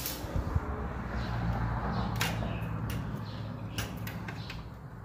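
A window being slid open by hand: a steady low scraping slide through most of the few seconds, with a few sharp knocks near two and four seconds in.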